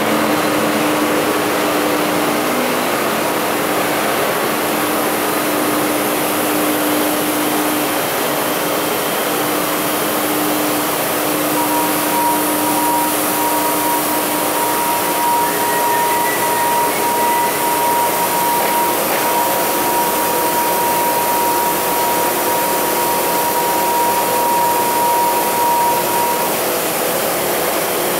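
Steady, loud machinery noise in a printing-plant pressroom: an even hiss and hum. A steady low tone sounds through the first half, and a steady higher whine comes in around the middle and stops shortly before the end.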